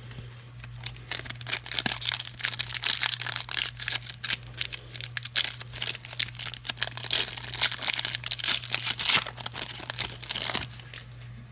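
Crinkling and tearing of a foil trading-card pack wrapper being opened and handled, a dense run of crackles lasting about nine seconds.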